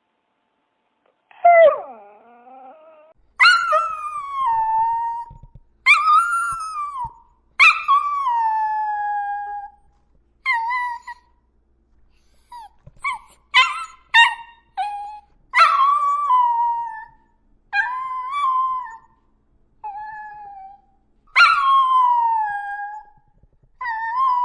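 A dog howling over and over: about a dozen drawn-out howls, each starting high and sliding down, with a few short yips in among them about halfway through.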